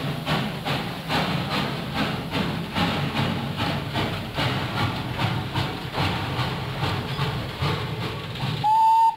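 Narrow-gauge sugar-mill steam locomotive chuffing as it pulls a cane train away, about three exhaust beats a second. A brief high whistle sounds near the end.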